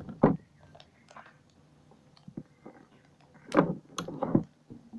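Plastic liquid-soap sachet being handled and opened: a few scattered clicks and crinkles, then a denser cluster of crinkling and clicking about three and a half seconds in.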